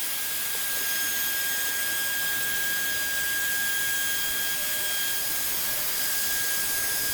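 Handheld router running steadily at full speed while cutting a groove into a laminate MDF worktop: a steady high whine over a hiss.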